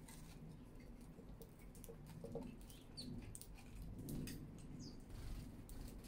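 House sparrows pecking seed in a wooden feeder tray: a scatter of quick dry clicks, with a few short chirps. A steady low city hum runs underneath.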